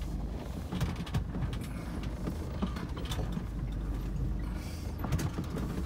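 A van's cabin while it drives slowly over a bumpy, rutted dirt track: a steady low engine and road rumble, with frequent rattles and knocks from the van's body and loose contents jolting over the bumps.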